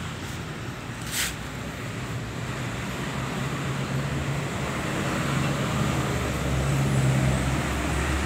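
TASCO two-stroke brush cutter engine running steadily, slowly getting louder, with one brief sharp click about a second in.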